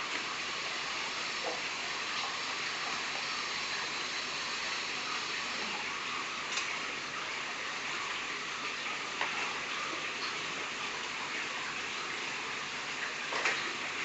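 Water from a large aquarium's filtration running with a steady rush, with a few faint clicks.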